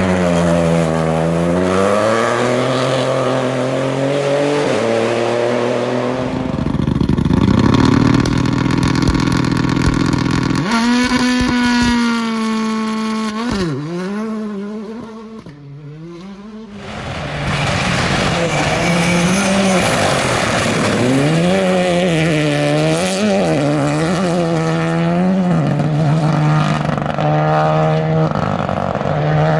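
Rally car engines revving hard, the pitch climbing and dropping with each gear change, as cars pass one after another in short clips that cut abruptly. About halfway through the sound briefly drops away, then the next car comes through revving.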